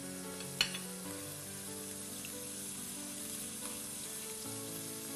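Pieces of meat frying in ghee in a pan, a steady sizzle and spatter from the water the meat releases into the hot fat. A single sharp knock comes about half a second in.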